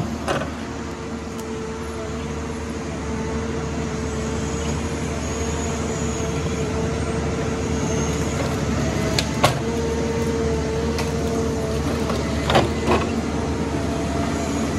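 John Deere 1270G harvester running steadily, its diesel engine under a constant hydraulic whine while the boom moves the H425 harvester head. A few sharp knocks cut through: one at the start, one about nine seconds in, and two close together near the end.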